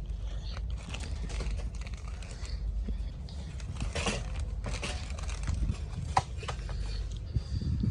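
Irregular light clicks and knocks, with sharper ones about four and six seconds in, over a steady low rumble: items being handled while shopping.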